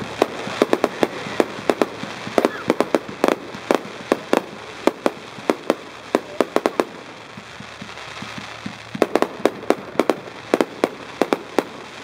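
Fireworks going off: many sharp pops and bangs in quick, irregular succession, with a short pause a little past the middle before they start again.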